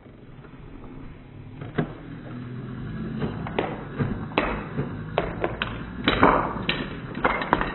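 Foam Nerf darts fired at a wooden Jenga block tower, striking the blocks and the wooden floor in a string of sharp taps and knocks that come faster in the second half.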